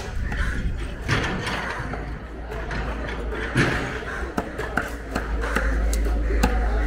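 Cleaver chopping fish on a thick wooden chopping block: several scattered sharp knocks, with voices in the background.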